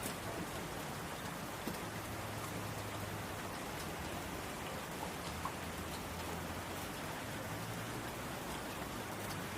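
Steady rain falling on a window, an even hiss dotted with scattered small ticks, over a faint low hum.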